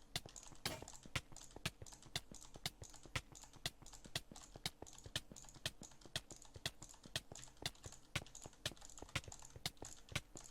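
A steady train of sharp, dry clicks repeating at a roughly regular pace of a few per second.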